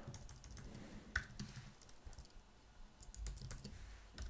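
Faint, scattered keystrokes on a computer keyboard, a few taps at a time with short gaps between them.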